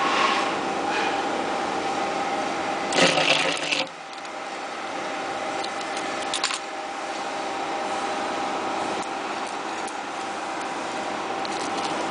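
Automatic transformer-core taping machine running with a steady hum and a high steady tone. About three seconds in there is a loud rushing burst lasting nearly a second as it runs a wrapping cycle, and a couple of brief clicks follow a few seconds later.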